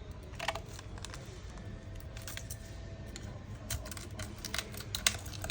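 Scattered small clicks and scrapes of a thin tool prying at a smartphone's glued LCD screen to lift it from the frame, more frequent in the second half, over a low steady hum.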